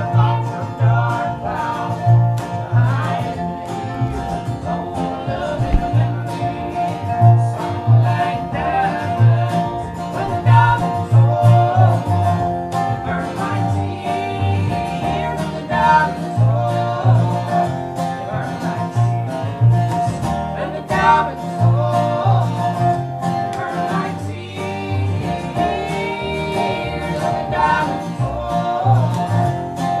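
Acoustic folk string band playing live: guitar over a plucked double bass line, with a melody line on top.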